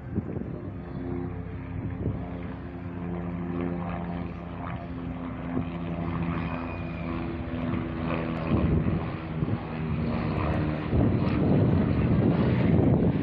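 Helicopter flying by close: a steady engine hum for much of the time, then a louder, choppier rotor sound building over the last few seconds as it comes nearer.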